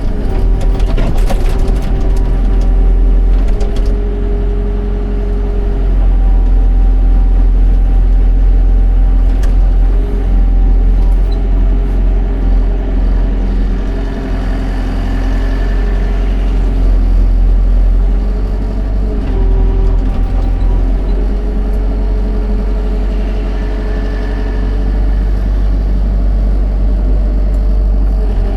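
Excavator's diesel engine running steadily under working load, with a whine that shifts up and down in pitch every few seconds. There are a few knocks about a second in.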